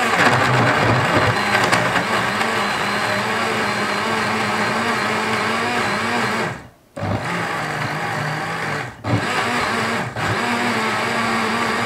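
Bosch VitaStyle Mixx2Go personal blender running, chopping chunky marinade ingredients (onion, pineapple, dried chillies, garlic, ginger) in lemon juice. It runs steadily for about six seconds, cuts out briefly, and is pulsed on again with two more short breaks near the end.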